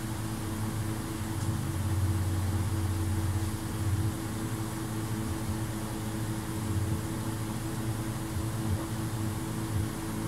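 Steady low mechanical hum of a motor running, with a few fixed low tones over a light even hiss, swelling slightly a couple of seconds in.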